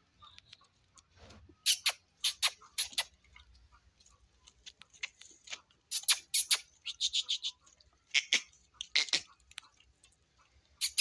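A calf suckling at a goat's teat: sucking and smacking sounds heard as sharp clicks in quick irregular runs with short pauses between.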